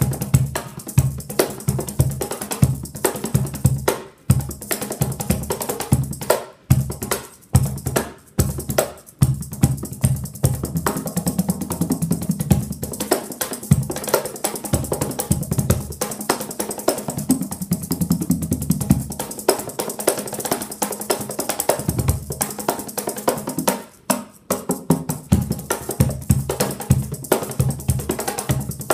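Cajon played solo in a fast improvised groove mixing jungle, Latin and falahi rhythms: dense deep bass strokes and sharp slaps with a buzzing snare rattle, broken by a few brief pauses.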